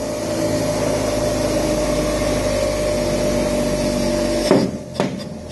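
Bench grinder with a wire-brush wheel running with a steady hum, a metal bearing housing being wire-brushed clean against it. About four and a half seconds in the sound drops off sharply, with a few short knocks.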